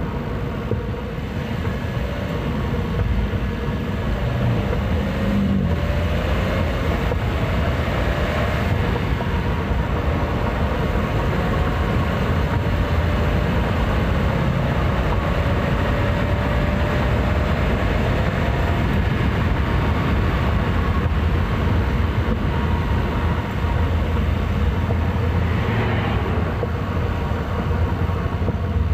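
Daihatsu Rocky 1.0 Turbo's three-cylinder turbocharged engine heard from inside the engine bay while driving, a steady running sound whose pitch rises slowly as the car gathers speed.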